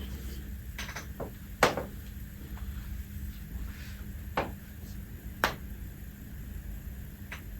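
A handful of short, sharp clicks and knocks, the loudest about a second and a half in and others spaced a second or more apart, over a steady low hum.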